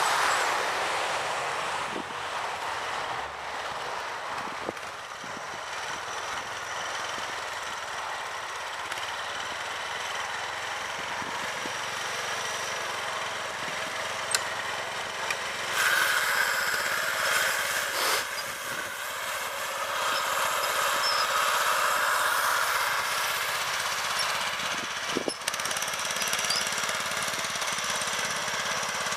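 Snapper LT11 lawn tractor's small engine running steadily as it pushes snow with a front plow blade, growing louder about halfway through.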